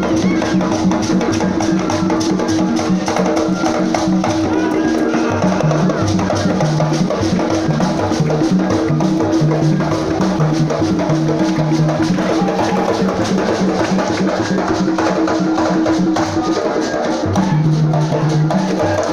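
Music for the Bagisu Imbalu dance: fast, dense drumming with a steady held tone and a low line that steps between notes.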